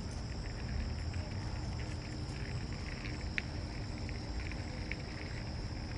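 Outdoor ambience: wind rumbling on the microphone, with a steady high-pitched drone and a few faint scattered clicks.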